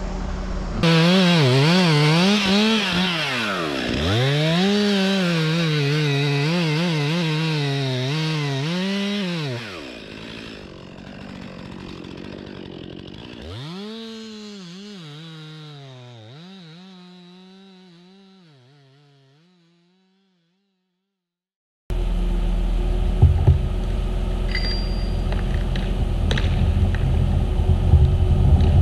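Two-stroke chainsaw cutting into a large poplar's trunk, its engine pitch rising and falling under load for about nine seconds, then dropping off. A second shorter burst of revving sinks in pitch and fades away, and after a break a low steady outdoor rumble follows.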